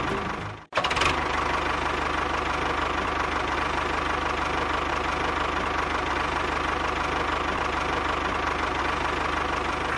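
A tractor-type engine running steadily at idle, cutting out for a moment under a second in and then carrying on evenly.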